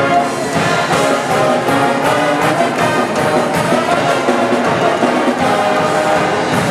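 College pep band playing a loud brass-heavy tune, with trumpets, trombones, saxophones and sousaphones over a steady drum beat.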